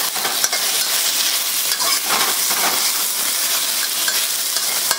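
Sliced beef and ginger sizzling steadily in hot peanut oil in a wok, while a spatula turns and stirs the meat with scattered scrapes and clicks against the pan.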